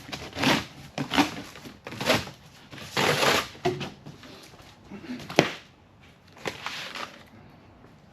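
Cardboard packaging being torn and crumpled in a series of short, rustling bursts, with one sharp knock about five seconds in.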